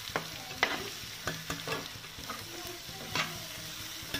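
Thick onion-tomato masala sizzling in a nonstick frying pan while it is stirred, with about half a dozen sharp scrapes of the utensil against the pan. This is the stage where the masala and dry spices are being fried (bhuna).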